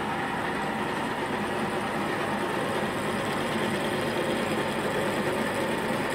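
Schaublin 13 milling machine running under cut: a spinning milling cutter takes a flat off a round metal workpiece clamped in the vise. The sound is a loud, steady mix of spindle and gear hum with cutting noise, and it holds even throughout.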